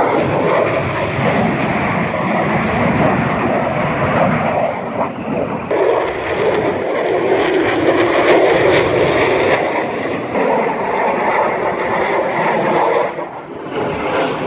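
Jet fighter's engine noise during a flying display, a loud steady roar that swells to its loudest about eight seconds in and dips briefly near the end.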